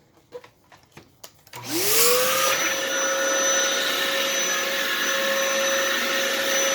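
A few faint clicks, then a Dyson DC07 upright vacuum cleaner's motor switches on about two seconds in. Its whine rises quickly and settles into steady running over a loud rush of air.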